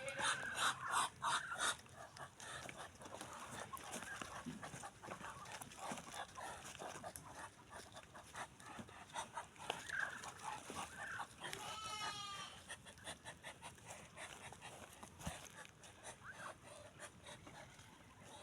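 Ducks calling: a run of short, rapid calls, busiest in the first two seconds, and one longer call with a wavering pitch about twelve seconds in.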